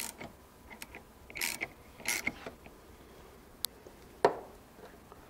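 A ratchet wrench clicks in short bursts, with sharp metal clinks, as it works the forcing screw of a bearing puller to draw a bearing off a shaft.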